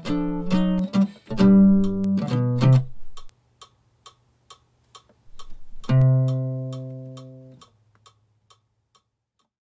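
Jazz guitar playing the tune's ending phrase of single notes and chords. About six seconds in it lands on a final chord that rings and fades, with a low bass note under it. Soft ticks keep time about twice a second until near the end.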